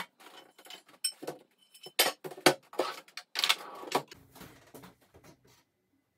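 Dishes and kitchen items knocking and clattering as they are moved about on a kitchen countertop, an irregular run of knocks with a couple of brief ringing clinks.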